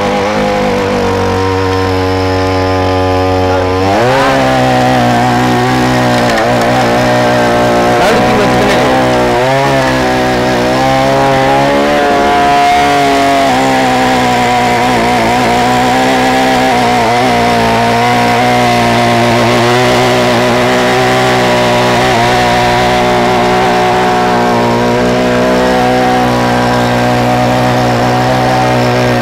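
Petrol backpack brush cutter running with a weeding head, churning soil and grass. The engine revs up sharply about four seconds in, then its pitch wavers up and down as the head digs into the ground under load.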